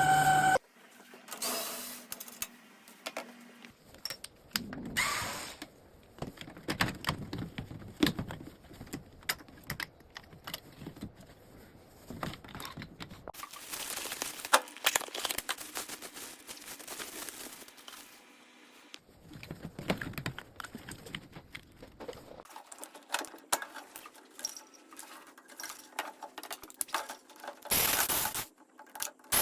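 Irregular clicks, rattles and scrapes of small metal and plastic parts and tools being handled while the fan motor of a microwave oven is taken out and replaced.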